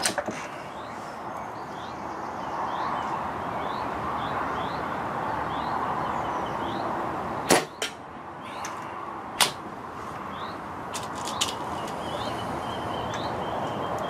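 Pre-charged pneumatic air rifle firing: two sharp shots about two seconds apart over steady wind noise on the microphone, with a few smaller clicks afterwards.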